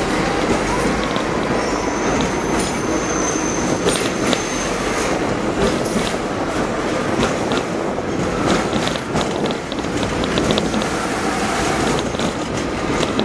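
Hong Kong double-decker electric tram running on street track, heard from on board: a steady rumble of steel wheels on rail with scattered clicks and rattles, and a faint high wheel whine for a few seconds near the start.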